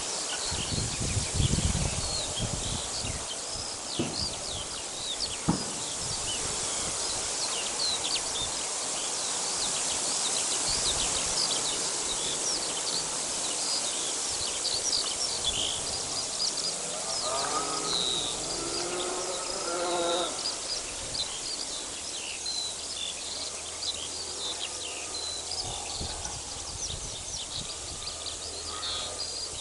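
Outdoor ambience of many small birds chirping over a steady high hiss. A short run of lower repeated calls comes about two-thirds of the way through, and there are two knocks in the first few seconds.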